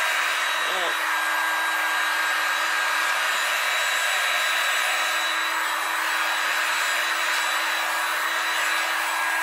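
Handheld electric heat gun running steadily: a rush of blown air with a steady motor whine in it.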